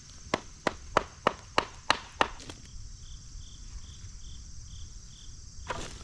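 A hammer striking a wooden concrete form board to knock it loose from the cured slab edge: seven sharp knocks, about three a second, stopping after two seconds or so. Crickets or other insects chirr steadily behind.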